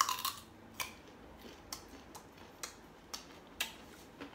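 Crisp bite into an unripe green ambarella (cóc Thái) followed by crunchy chewing: sharp crunches, about two a second, the first bite the loudest.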